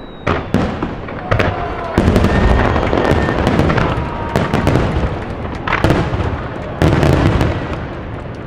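Computer-fired starmine fireworks going off in rapid succession: many sharp shell bursts over a continuous crackle. Heavier booming volleys begin about two seconds in and again near the end.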